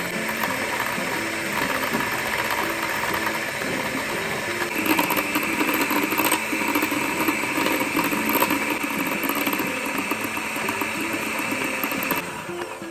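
Electric hand mixer whirring as its beater whips instant coffee and sugar into dalgona foam in a glass bowl. It gets a little louder about five seconds in and stops shortly before the end.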